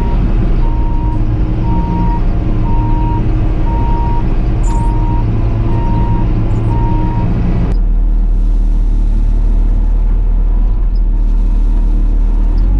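Bobcat T650 compact track loader's diesel engine running under work, with its backup alarm beeping steadily for the first seven seconds or so. About eight seconds in the sound changes abruptly to a deeper, duller engine rumble.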